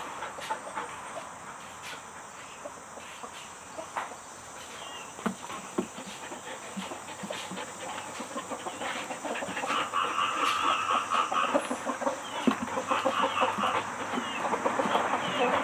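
Chickens clucking in rapid runs of short calls that start about ten seconds in and carry on to the end, with scattered light clicks before them.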